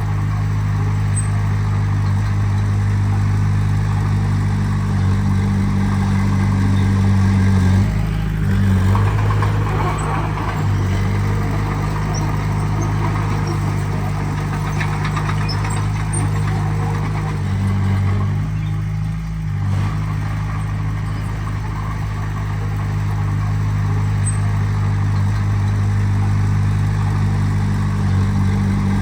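Heavy diesel engine of earthmoving machinery running steadily, its low note shifting about eight seconds in and again around eighteen to twenty seconds, with some clatter in the middle.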